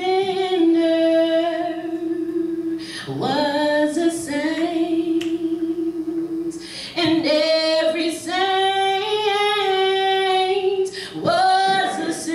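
A woman singing a gospel song a cappella, unaccompanied, in long held notes, taking a short breath between phrases about every four seconds.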